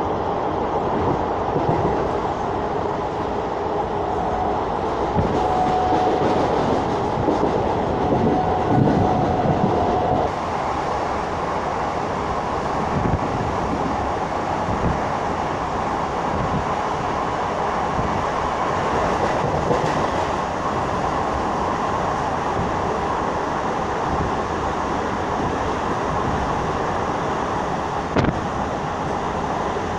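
Electric suburban local train (EMU) running at speed, heard from inside the coach at the window: a steady rumble and rattle of the carriage, with the clatter of the wheels over the rail joints. A faint steady whine sounds from about four seconds in until about ten, and there is one sharp knock near the end.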